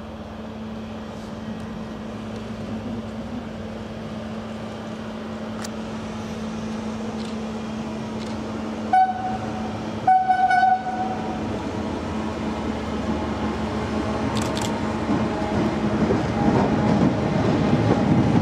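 Vossloh G1206 diesel-hydraulic locomotive running past with a steady engine hum, sounding its horn twice about halfway through: a short toot, then a slightly longer one. Over the last few seconds the rumble and clatter of the freight wagons it hauls grows louder.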